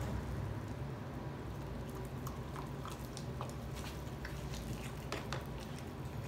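American Bully dog eating spaghetti, with wet chewing and smacking and a scatter of short, sharp clicks from its mouth, over a steady low hum.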